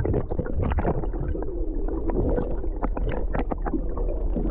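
Underwater sound picked up by a camera held below the sea surface: a steady low rumble and hum with many sharp irregular clicks and crackles.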